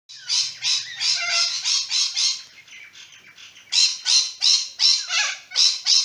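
White cockatoo giving a run of harsh, repeated screeching calls, about three a second; the calls drop softer for about a second in the middle, then come loud again.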